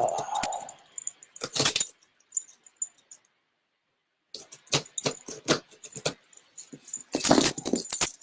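A cardboard shipping box being opened by hand: irregular scrapes, rustles, clicks and light jingling as tape and flaps are worked loose. It comes in short spells, busiest from about halfway, with the loudest stretch near the end.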